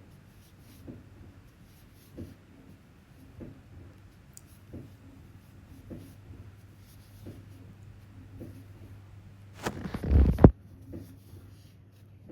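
Crochet hook and yarn rubbing softly as single crochet stitches are worked, a faint stroke about every second and a quarter over a low hum. Near the end a louder noisy rustle lasts about a second.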